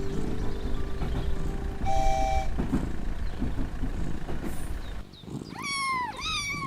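Steady rumbling noise, like a running vehicle, with a brief horn-like toot about two seconds in. Near the end it drops away and a cat meows twice, each meow sliding in pitch.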